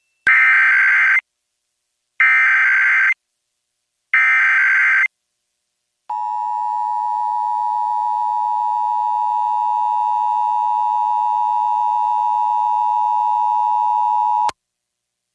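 Emergency Alert System SAME header: three one-second bursts of screeching digital data tones about two seconds apart. They are followed by the steady two-tone EAS attention signal, held for about eight seconds before it cuts off sharply. Together they open a Required Monthly Test alert.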